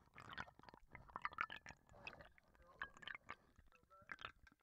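Water being poured into a tall glass, picked up by a contact microphone in the glass: faint, irregular crackling, clicks and gurgles.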